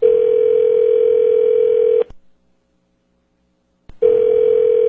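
Telephone ringback tone heard over the line: a steady ring tone for about two seconds, a two-second pause, then the tone again about four seconds in. The call is ringing at the other end and has not yet been answered.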